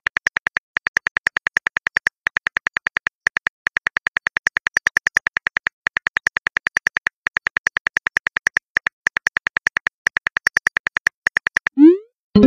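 Phone on-screen keyboard click sounds, a rapid run of about nine taps a second with short pauses, as text is typed and deleted. Near the end comes a short rising whoosh.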